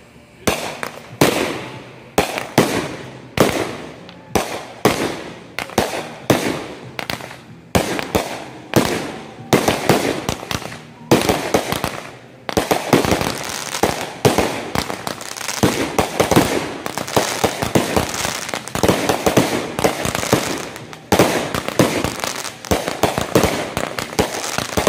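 Fireworks finale: shells launching and bursting in a rapid string of sharp booms, spaced about a half second apart at first, then running together into a dense, nearly unbroken barrage from about halfway through.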